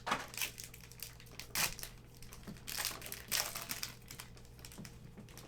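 Plastic trading-card pack wrappers crinkling as they are torn open and handled, in several short rustles, the loudest about a third and two thirds of the way through.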